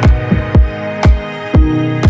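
Electronic dance music with a heavy kick drum, about two beats a second, over sustained synth notes.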